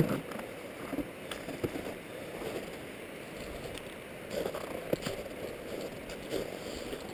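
Steady rush of a river flowing, with a few soft knocks or crunches mixed in.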